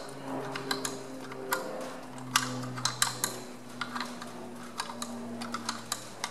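Steel spanner clicking and knocking against a water-pump bolt as it is worked loose, in quick irregular ticks, a few a second. The bolts thread into the alloy timing-case housing of a Perkins diesel tractor engine.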